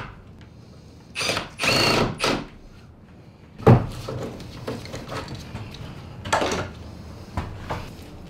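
Cordless drill running in two short bursts with a steady motor whine, followed by a sharp knock and lighter clicks and knocks of bar clamps being handled on the glued-up timber laminations.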